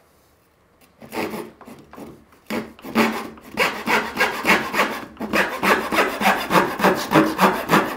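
Veritas 14 TPI rip-pattern backsaw crosscutting a 3/4-inch vertical-grain fir board. After about a second of quiet come a few light starting strokes, then steady back-and-forth sawing at about two to three strokes a second, growing louder. The saw runs all the way down the kerf without binding, a sign that its teeth have some set.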